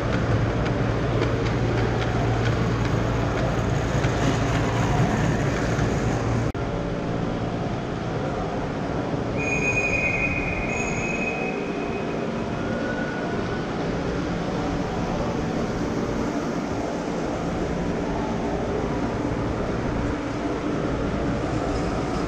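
Large-scale garden-railway train running along its track, heard from on board: a steady rumble of wheels on the rails. Near the middle a high, steady squeal sounds for about two seconds.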